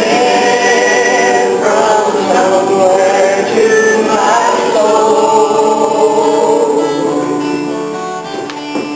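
Gospel song sung by a group of voices, with long held notes and some vibrato.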